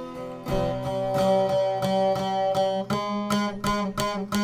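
Long-necked Bosnian folk lute (saz) picked with a plectrum in quick, even strokes over steadily ringing drone strings: the instrumental opening of a traditional izvorna folk song.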